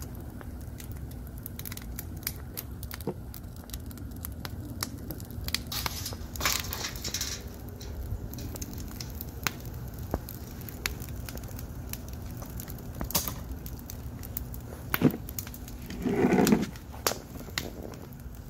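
Wood fire burning fiercely, crackling with frequent sharp pops over a steady low rumble. There is a brief hiss about six seconds in and a louder short rush near the end.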